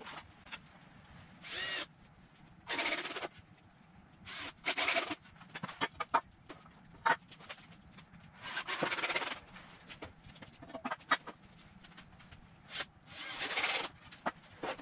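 Cordless drill driving construction screws into wooden braces in several short bursts of whirring, with clicks and knocks of wood and hardware in between.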